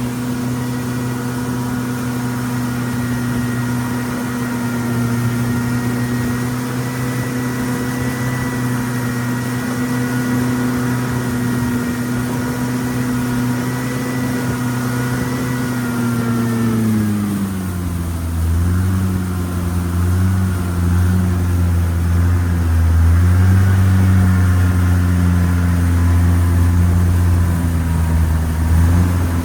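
Boat engine running steadily, then throttling down about two-thirds of the way through and carrying on at a lower, slightly wavering pitch.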